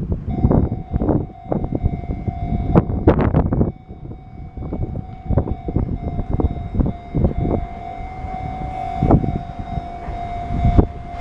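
Commuter train running, its wheels clattering over rail joints and points in irregular clicks and knocks. A steady high whine sets in just after the start and grows louder near the end.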